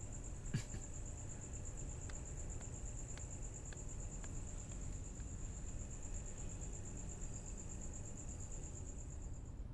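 Crickets chirring in one continuous high trill over a faint low rumble; the trill cuts off near the end.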